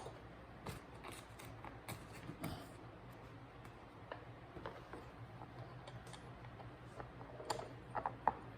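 Faint, scattered light clicks and taps of small bolts and mounting hardware being handled, a few sharper ones near the end, over a faint steady low hum.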